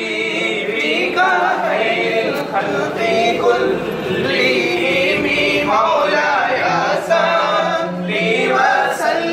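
A group of men chanting together in chorus, with many voices overlapping: devotional Islamic chanting.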